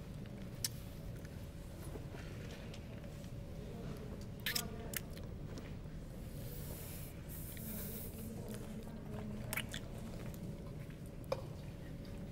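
Faint wet mouth sounds with a few sharp lip smacks as a man kisses and sucks a person's bare toes, over a low steady room hum.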